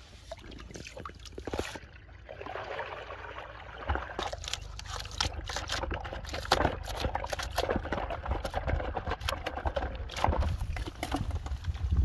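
Water sloshing and pouring out of a plastic tub holding live fish, followed by many short sharp splashes as the fish flap in the little water left.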